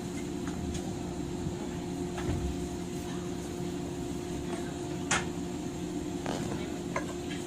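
Steady hum of a stationary JNR 103 series electric train car's onboard equipment, heard inside the car, with a few faint clicks and one sharp click about five seconds in.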